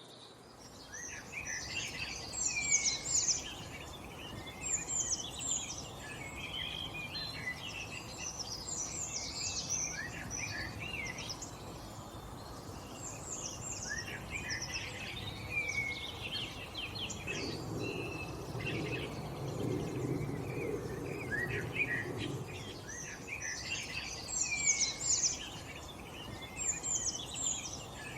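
Several birds chirping and singing in a busy, overlapping chorus of short, sweeping notes over a steady background hiss. A low hum rises underneath for a few seconds past the middle.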